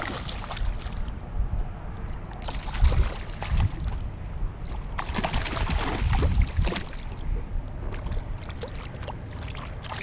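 Water splashing and sloshing against a kayak, with irregular knocks and rustles of handling on the hull. There are louder surges of splashing about three seconds in and again around six seconds in.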